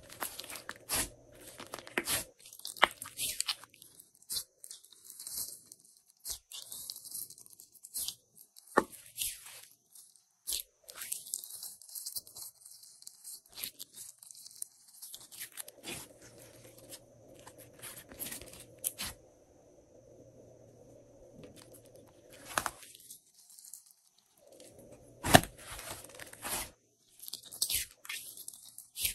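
Glossy slime being worked by hand, with irregular sticky pops, crackles and tearing sounds as it is pressed and pulled apart.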